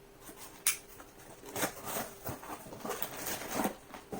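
Handling noise from a spool of 3D-printer filament and its packaging: irregular rustles and light knocks, the loudest a sharp click less than a second in and a cluster of rustles about three and a half seconds in.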